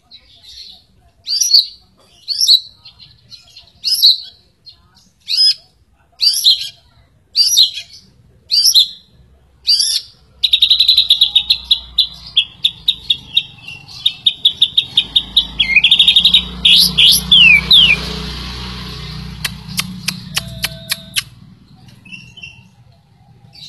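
White-rumped shama (murai batu) singing loud, clear whistled phrases about once a second, then breaking into a fast run of repeated notes ending in a few falling slurs. A low rumble sits underneath the second half.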